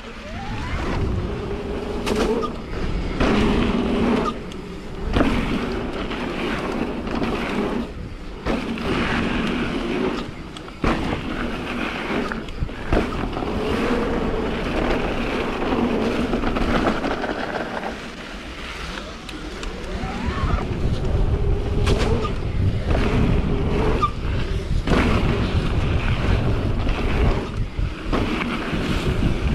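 Mountain bike riding down a dirt jump line: wind buffeting the microphone over the rumble of knobbly tyres on dirt, with scattered knocks and rattles from the bike over bumps and landings.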